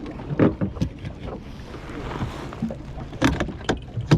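Wind and water noise aboard a small fishing boat at sea, broken by a few sharp, irregular knocks and clatters.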